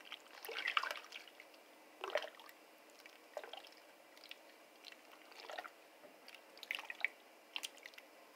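A spoon stirring rice cooking in milk in a stainless-steel pot: soft, irregular sloshes and squelches, roughly one a second.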